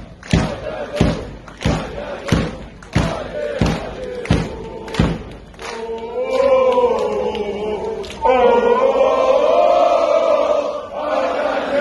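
Large crowd of football supporters chanting in unison over a loud regular beat, about three beats every two seconds. The beat stops about five seconds in and the crowd carries on with a held, sung chant that grows louder about eight seconds in.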